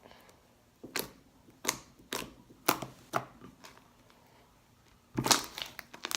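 Sticky homemade slime being squeezed and stretched by hand, making sharp wet clicks and pops about every half second, then a denser flurry of louder clicks near the end. The slime is still sticky and under-activated, though it clicks well.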